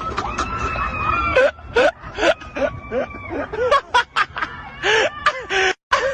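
A person's high-pitched scream, held for about a second, then a run of short squealing, snickering cries broken by breathy gasps.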